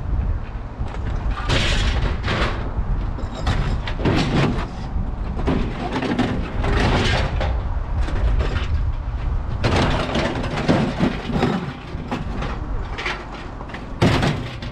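Scrap metal and appliance parts clattering and clanging as they are dropped and tossed onto a scrap pile, in irregular bursts with a sharp clang near the end, over a steady low rumble.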